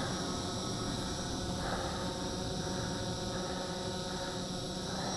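Simtoo Dragonfly Pro quadcopter hovering, its four propellers giving a steady, even buzzing hum.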